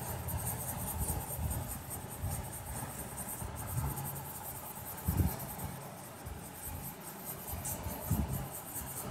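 Felt-tip sketch pen scratching continuously over paper as it scribbles small overlapping circles, under a low background rumble. Two soft thumps come about five and eight seconds in.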